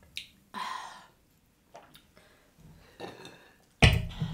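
A breathy sigh just after a sip of red wine, then quiet; near the end a sudden loud thump.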